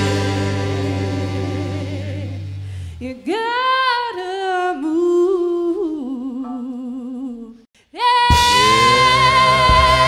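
Live band playing a slow blues number: a held chord dies away, then a single voice sings a wavering line unaccompanied, and after a brief break the full band comes back in loud near the end.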